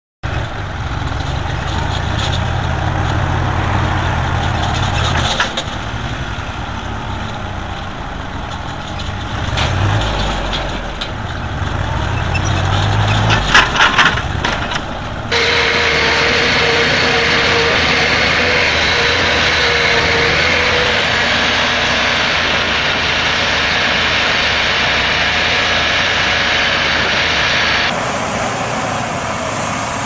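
Heavy diesel engines of farm tractors and a tracked John Deere forestry machine running hard under load while stuck in mud, in short clips that change abruptly about halfway and again near the end. A few sharp knocks come just before the first change.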